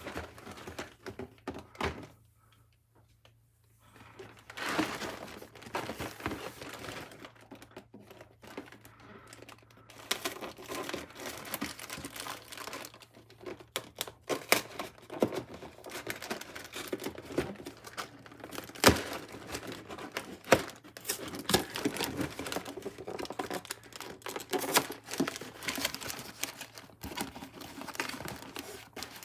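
Plastic bags of Lego pieces crinkling and being torn open, with scattered clicks and knocks of the parts and box being handled. There is a quiet pause about two seconds in.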